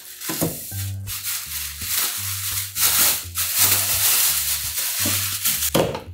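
Thin plastic carrier bag rustling and crinkling as hands open it and pull it off a plastic food container, over background music with a steady low bass line.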